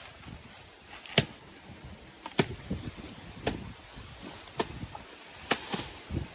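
A series of sharp strikes or knocks, six in all and about one a second, the last two close together.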